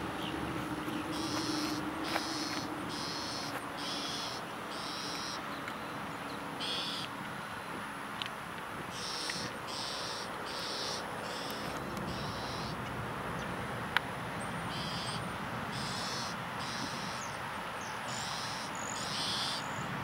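Bald eagle calling: series of four to six high, thin piping notes in a row, repeated three times with pauses between, over a steady background hiss. A single sharp click sounds about two-thirds of the way through.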